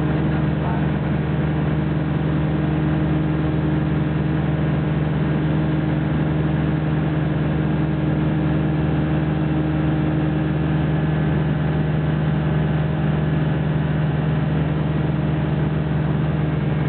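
Light aircraft's piston engine and propeller droning steadily in flight, heard from inside the cockpit, holding an even pitch throughout.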